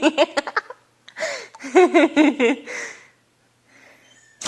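A girl's high-pitched voice in two short stretches, the first at the start and the second from about a second in to about two and a half seconds, then a quiet pause.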